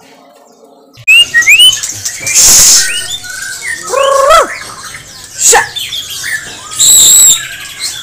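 Caged songbird singing loudly in a varied song: after a quiet first second, quick rising whistles, a harsh noisy note, curved whistled phrases and a high ringing note near the end.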